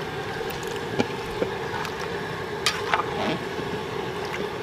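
A large metal pot of chicken korma being stirred with a long paddle: wet stirring, with a few short knocks of the paddle against the pot, over a steady rushing noise.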